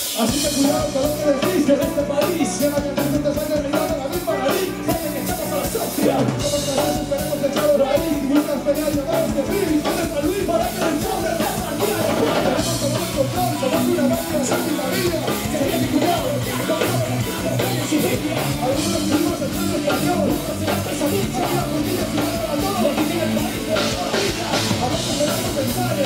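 Live rock band playing: drum kit, electric guitars and vocals delivered into microphones by two frontmen, loud and continuous.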